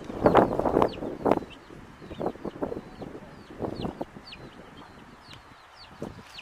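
Domestic chicks peeping over and over in short, high, falling chirps, with lower clucks mixed in that are loudest in the first second and a half.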